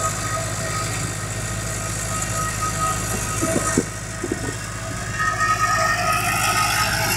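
Butt fusion welding machine for 300 mm HDPE pipe running: a steady mechanical hum with a constant high whine, and a few light knocks a little past the middle.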